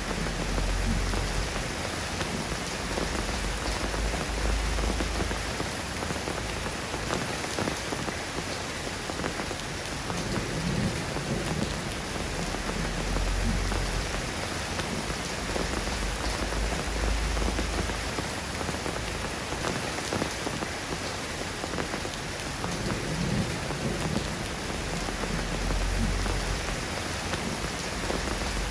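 Steady rain falling and pattering on surfaces, an even hiss, with a low rumble swelling up under it every few seconds.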